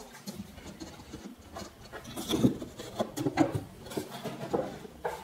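Plywood drawer box pieces being handled and dry-fitted on a wooden workbench. The sides are pushed onto a quarter-inch plywood bottom seated in their dados, giving a series of irregular light wooden knocks and rubs, loudest about two to three and a half seconds in.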